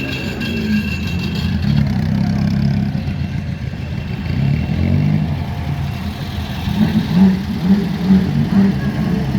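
Classic car engines running at low revs, their pitch rising and falling with light blips of the throttle.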